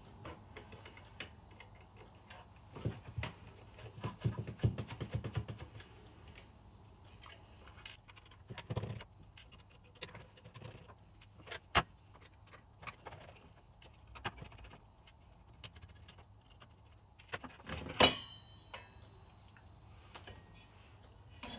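Small screwdriver undoing the screws of a graphics card's plastic fan shroud: scattered clicks, scrapes and light handling knocks. A sharper knock comes about eighteen seconds in, as the shroud comes free of the aluminium heatsink.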